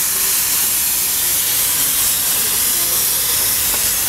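Steam locomotive venting steam beside its driving wheels and cylinder: a loud, steady hiss.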